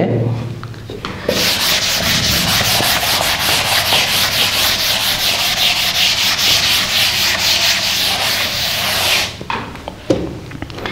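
Blackboard duster wiping chalk off a chalkboard in rapid back-and-forth strokes. It starts about a second in and stops about a second and a half before the end.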